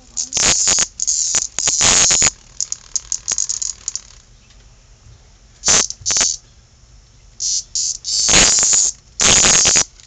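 A cicada buzzing harshly in loud short bursts, the distress squawks of a caught insect being batted at by kittens. The bursts come in a cluster in the first two seconds, stop for a few seconds, then return from about six seconds in, the longest just past eight seconds.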